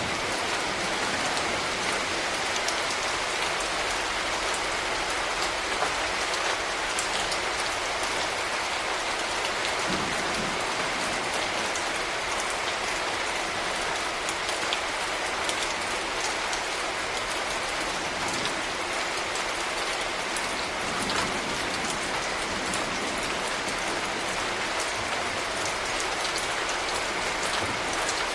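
Steady rain falling: an even wash of noise with many sharp, irregular drop ticks scattered through it.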